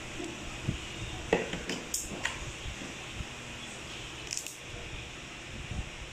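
A few light, separate clicks and taps of hand-handled plastic and metal parts: a hammer drill's trigger switch and a pair of pliers being picked up and worked, over a steady low hiss.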